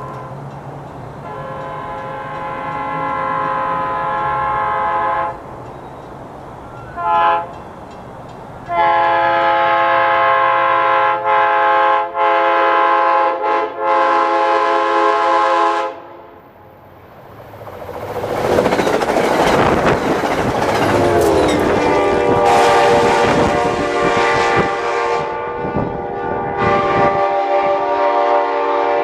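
Passenger train horn in a horn show: a long chord, a short blast, then a run of blasts with brief breaks. After a short lull the train passes at speed with rising rail noise and wheel clatter, and a long horn blast drops in pitch as the train goes by, then sounds on.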